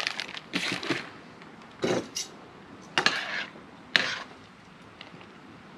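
Metal tongs clinking against a stainless steel pot while stirring soba noodles in boiling water: about four sharp clinks, roughly a second apart.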